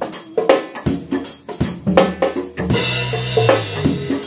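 Drum kit played in a steady warm-up groove, kick and snare strokes with a cymbal crash ringing out a little under three seconds in, with congas played alongside. A steady held note joins near the end.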